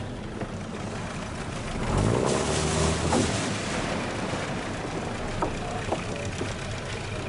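Boat engine running, revving up with a rising pitch about two seconds in, then settling back to a steady run, with a couple of light knocks later.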